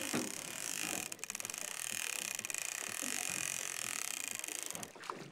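Multiplier sea-fishing reel ratcheting with a rapid, even run of clicks during the fight with a hooked fish, starting about a second in and stopping just before the end, over a steady hiss of wind and water.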